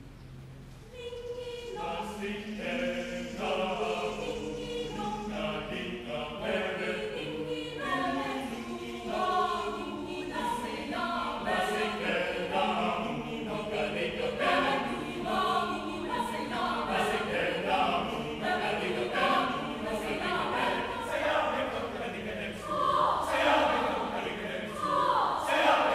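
Mixed choir of men's and women's voices singing in parts. The voices come in about a second in and build, loudest near the end where the high voices rise above the rest.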